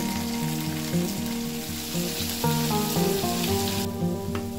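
Paneer cubes sizzling as they shallow-fry in hot oil in a pan, over background music with steady sustained notes. The sizzle cuts off near the end while the music carries on.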